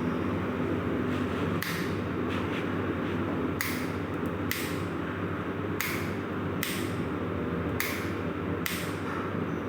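Honda Karisma 125 cc single-cylinder four-stroke motorcycle engine idling steadily, with short bursts of hiss several times over it.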